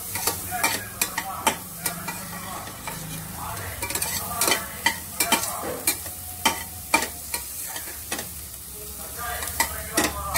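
A spatula scraping and knocking against a stainless steel pan as cluster beans and shallots are stirred, sautéing in butter with a light sizzle. The clicks and scrapes come irregularly, several a second, busiest in the middle and again near the end.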